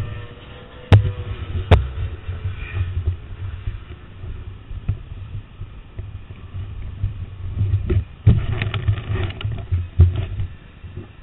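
Camera handling noise: two sharp knocks about a second apart, then bumps and rubbing with a cluster of knocks near the end, over a low, uneven rumble of wind on the microphone.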